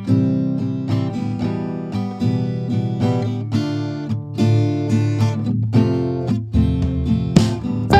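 Background music played on acoustic guitar: plucked notes at an even pace, with a higher melody line joining near the end.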